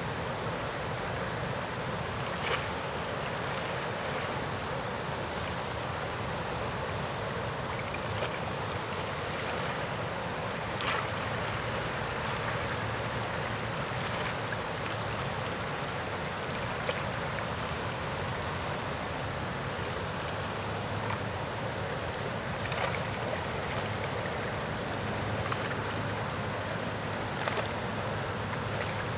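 Steady outdoor background noise, an even rushing hiss with a faint low hum that grows stronger in the second half, and a few faint single clicks.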